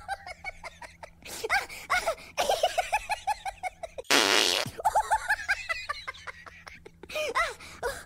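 Laughter in several bursts of quick, rapid-fire 'ha-ha' pulses. A loud raspy blast about half a second long cuts in about four seconds in.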